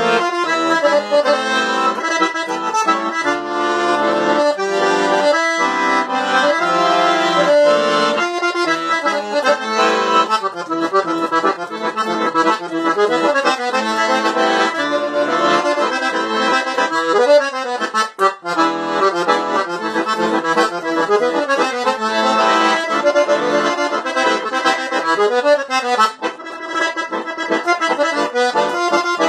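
Ranco Antonio button accordion played solo: a lively melody over chords, with quick runs of notes and a couple of short breaks in the phrasing.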